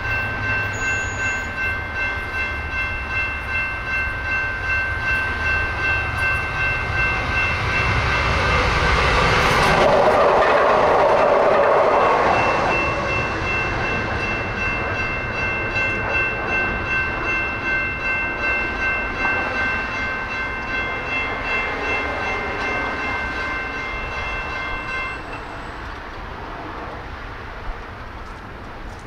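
Railroad crossing bells ringing with a steady pulse while a light rail train passes, its rumble swelling for a few seconds about a third of the way in. The bells stop a little before the end as the crossing clears.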